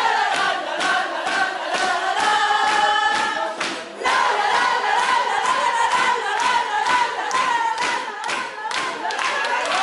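A small group singing together loudly, with hands clapping in a steady rhythm along with the song; the singing breaks off briefly about four seconds in, then picks up again.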